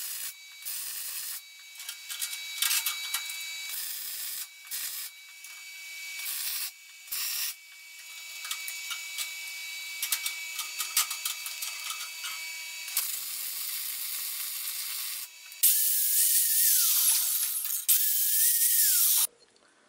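Electric arc welding on steel, crackling and hissing in several short runs with brief pauses. Near the end an angle grinder grinds the welded steel in two short bursts, louder than the welding, its motor whine dropping in pitch each time it is switched off.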